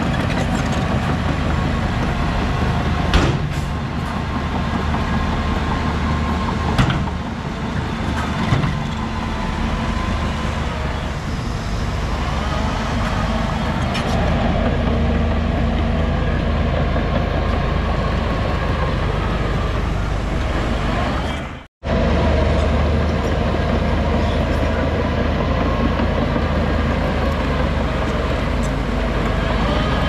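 Heavy diesel earth-moving machinery running steadily under work, with a few sharp clanks in the first nine seconds. The sound drops out for an instant about twenty-two seconds in.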